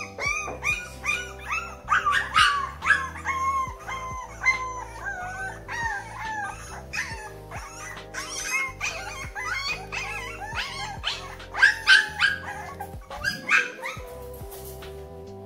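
A litter of one-month-old bulldog puppies whining and yelping over one another in rapid, high, falling cries, hungry and impatient for food. Background music plays under them.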